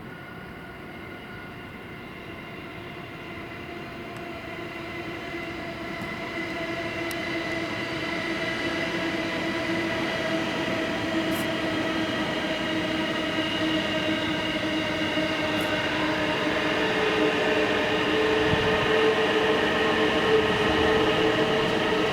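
Electric commuter train approaching, growing steadily louder over about twenty seconds, with a steady whine of several tones over its running noise.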